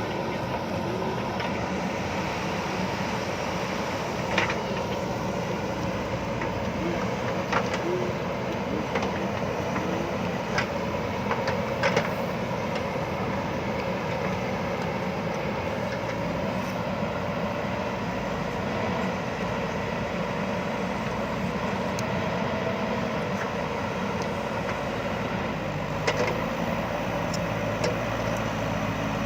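JCB backhoe loader's diesel engine running steadily as the machine works, with a few sharp knocks scattered through it.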